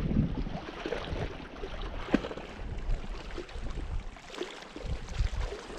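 Wind buffeting the microphone as an uneven low rumble, with scattered light clicks and knocks, one sharper click about two seconds in.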